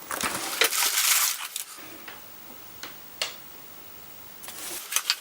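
Packaging being unwrapped and handled, with rustling for about the first two seconds, then a few scattered light clicks and taps.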